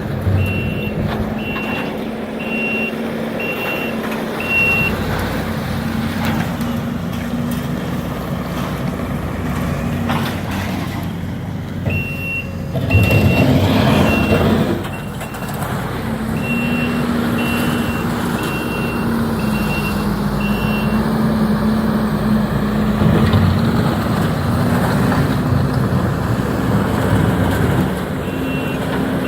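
Demolition heavy equipment running with a steady engine drone while a backup alarm beeps in several runs of evenly spaced beeps, about one and a half a second. About thirteen seconds in, a louder noisy surge lasts about two seconds.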